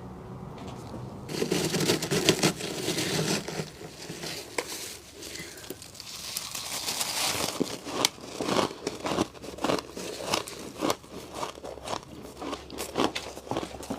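Freezer frost ice being bitten and chewed close up. Starting about a second in, there are bursts of crinkling, crackling crunch, then a run of sharp crunches at about two a second in the second half.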